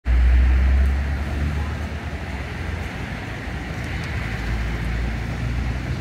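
Street traffic noise: a steady low rumble and hiss of passing cars, loudest in the first second.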